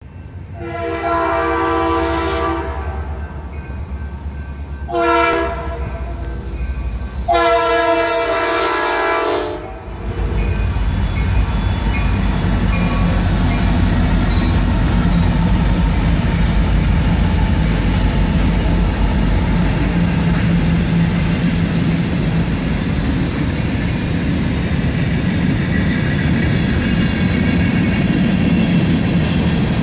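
BNSF diesel freight locomotive's air horn sounding three blasts (long, short, then a longer, loudest one), then the lead diesel locomotives and freight cars passing at speed: a steady loud rumble with a low engine drone and wheels clacking over the rails.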